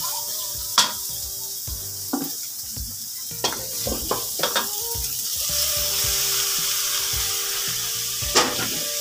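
Onion, garlic and ginger sizzling in hot oil and margarine in a large aluminium wok, stirred with a wooden spatula that knocks against the pan a few times. About halfway through, the sizzle grows louder as chopped pork intestines go into the pan.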